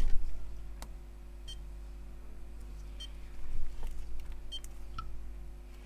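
Small battery spot welder, switched on and ready, giving a short high beep about every second and a half, over a low steady hum, with a few faint clicks of handling.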